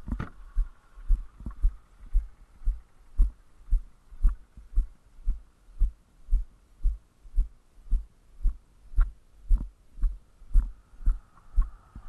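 Footsteps of a person walking at a steady pace, heard as dull, even thumps about twice a second through a body-worn camera.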